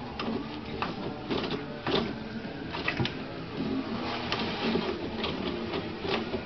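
Toilet paper rustling and the roll spinning on its wall holder as a cat paws at it, in a string of irregular short swishes.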